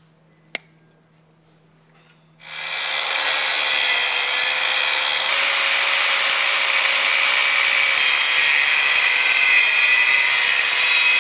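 A single click, then about two and a half seconds in an angle grinder with a thin cut-off disc spins up and runs steadily against steel, a loud hiss with a steady whine. It is cutting through the top of a weld bead that holds a bolt in the tractor's frame, to crack the weld off.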